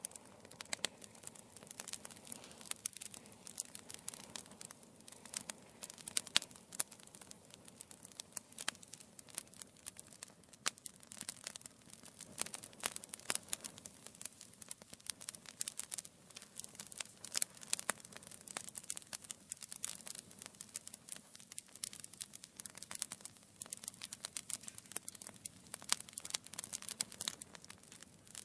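Wood fire in a fireplace crackling steadily, with many small irregular snaps and pops over a soft hiss.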